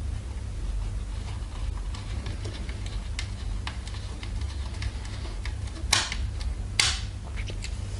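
Small screwdriver turning screws into the plastic bottom cover of a TP-Link router: faint scattered ticks and clicks, with two sharper clicks about six and seven seconds in, over a steady low hum.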